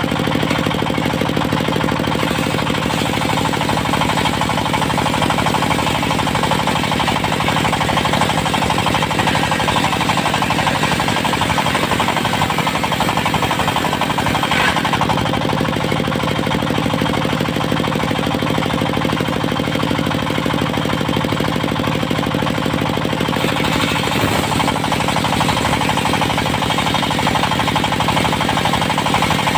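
Diesel engine driving a portable circular sawmill, running steadily at speed with a hard, rapid clatter.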